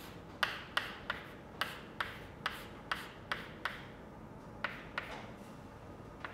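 Chalk on a chalkboard as an equation is written: a quick run of short, sharp taps and scratches, pausing briefly about four seconds in before a few more strokes.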